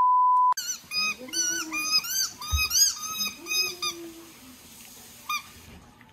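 A steady test-tone beep for about half a second, then a rubber squeaky ball squeaking over and over as a golden retriever chews it, about ten squeaks in three seconds, with one more short squeak about five seconds in.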